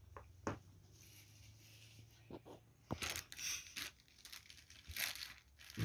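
Plastic packaging rustling and crinkling, with a few sharp clicks, as a plastic case of DOMS water colour pens is opened.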